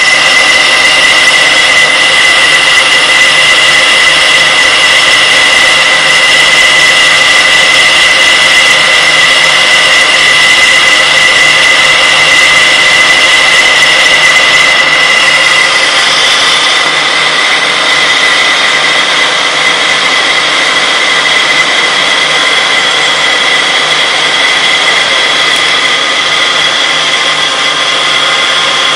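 Metal lathe facing an aluminium flange: the spinning chuck and the cutting tool make a loud, steady high whine over a machining hiss. About halfway through, the whine shifts a little higher.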